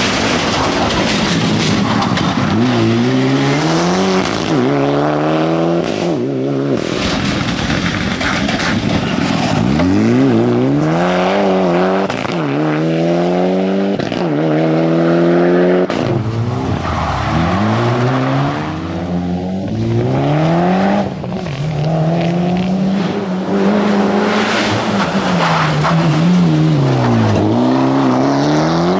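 Mitsubishi Lancer Evolution rally cars' turbocharged four-cylinder engines driven hard, the revs climbing and dropping again and again as they shift through the gears, with dips where they slow for corners and pull away.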